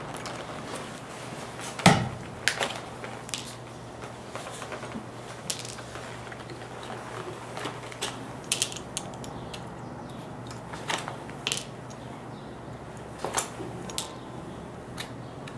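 Scattered sharp metal clicks and snaps from a shoemaker's hand tool working the lasting tacks on a hand-lasted shoe upper, the loudest about two seconds in, over a steady low hum.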